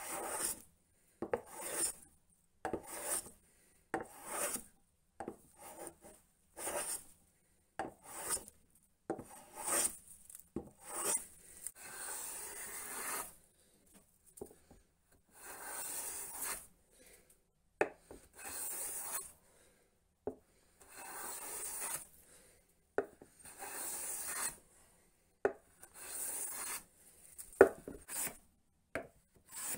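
Custom infill hand plane planing a wooden board, stroke after stroke, the iron taking a shaving with each pass. Short strokes come in quick succession for about the first ten seconds, then longer full strokes about every two and a half seconds, then short ones again near the end.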